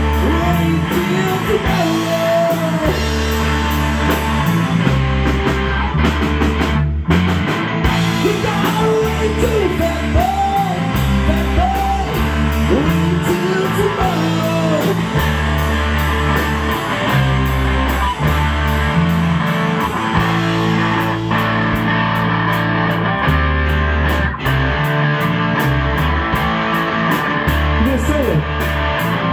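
Live rock band playing: distorted electric guitars through an amp, a drum kit and a singer through a microphone, with the vocal strongest in the first half.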